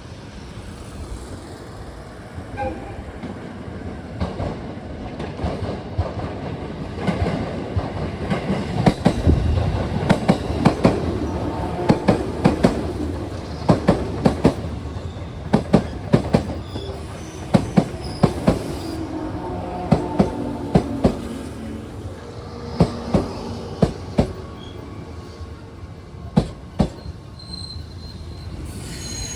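415 series electric multiple unit running in past the platform, louder as it comes closer, its wheels clacking sharply over the rail joints again and again. High wheel and brake squeal starts near the end as the train slows to stop.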